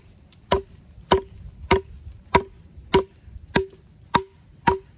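Work Tuff Gear Puzon Wilderness Bowie 7, a 7-inch SK85 steel Bowie knife, chopping into a green branch on a log: eight steady strikes, a little under two a second, each leaving a brief ringing tone.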